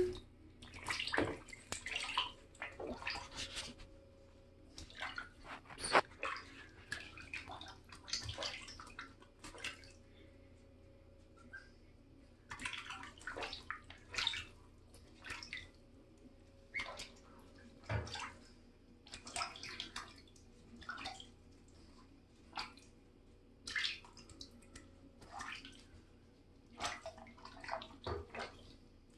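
Goslings splashing and dabbling in shallow water in a bathtub: irregular small splashes and drips, sometimes several in quick succession, with short quiet gaps between.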